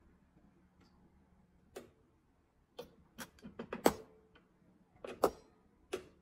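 Irregular light clicks and knocks of small hard objects, about ten, bunched in two clusters, a few with a brief ringing tail.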